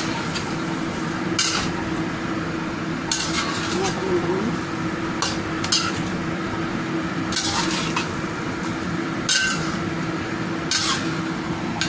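A spatula scraping and knocking against a black wok while stirring chicken pieces in thick sauce, a stroke every second or two, over a steady low hum.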